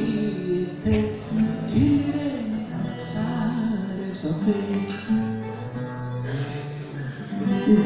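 Acoustic guitar strummed live, with a man singing along.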